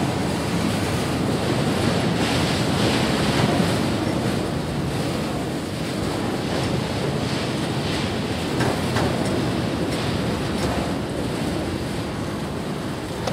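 Freight train of enclosed autorack cars rolling past at speed: a steady rush of steel wheels on rail.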